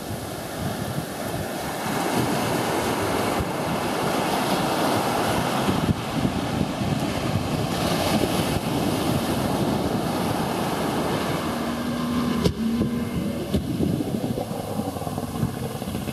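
Surf washing on the beach, with wind buffeting the microphone; the sound changes abruptly about twelve seconds in.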